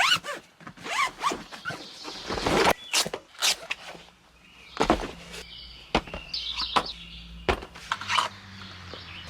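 A string of sharp clicks and knocks, about a dozen spread unevenly, with a few short rising squeaks near the start.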